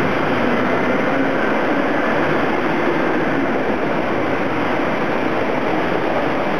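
LVL production line machinery running around its multi-opening hydraulic hot press: a steady, even industrial din with no distinct strokes or impacts.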